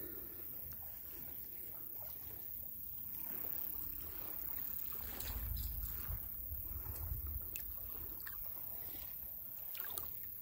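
Water sloshing and lapping around a person wading deep through floodwater, with a few faint splashes and a low rumble swelling in the middle.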